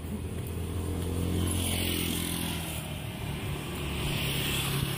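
Motor vehicles passing on the street: one engine goes by in the first half, its pitch falling slightly as it passes, and another engine grows louder near the end.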